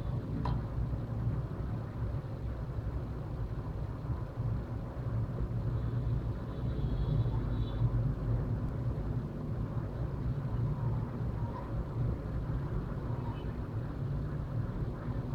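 Steady low background rumble, with a single sharp click about half a second in.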